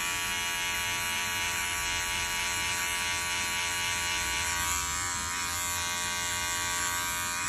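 Wahl electric hair clipper with a guide comb attached, running with a steady, even buzz as it cuts short hair.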